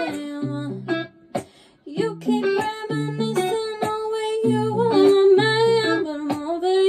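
A woman singing a pop melody over plucked acoustic guitar, with a short break in the singing and playing about two seconds in.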